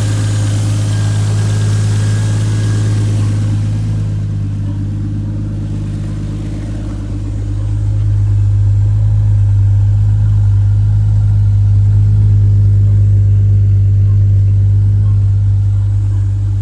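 Toyota Supra's turbocharged GTE straight-six engine running steadily with one even note, growing a little louder about eight seconds in.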